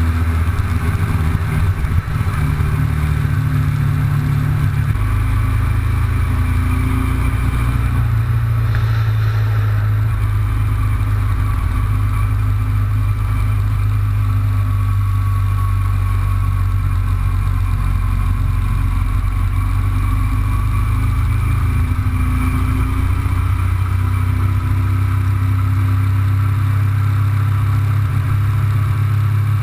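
Cruiser motorcycle's engine running under way, heard from on board the bike, with a steady rush of noise over it. The engine note changes in steps around two and five seconds in, then holds steady.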